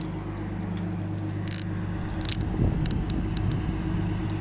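Car engine and road noise heard from inside the cabin while driving at a steady speed, a steady low hum with a few light rattling clicks and a brief knock a little past halfway.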